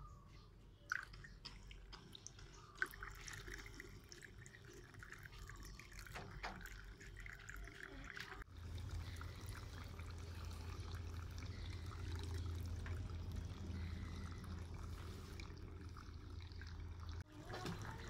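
Faint trickling and dripping of water falling from the bamboo spouts of a small tabletop fountain into its bowl. A low steady hum joins about halfway in.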